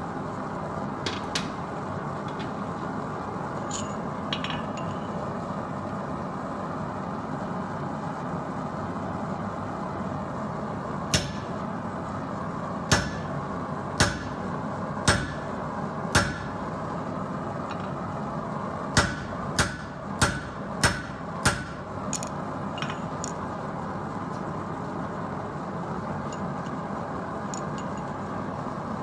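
Hand hammer striking steel on an anvil, with a ringing clang on each blow: five blows about a second apart, then after a short pause a quicker run of five. Under the blows runs the steady noise of the mini forge.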